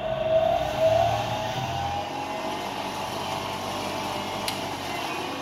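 Electric power saw's motor running with a steady whine that rises in pitch about a second in, then holds at speed.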